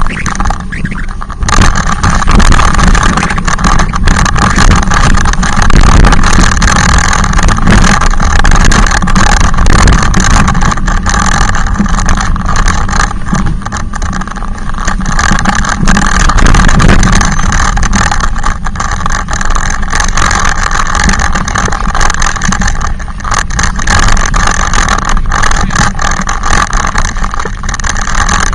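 Loud, steady motor noise from an e-bike riding close behind, over a strong low rumble.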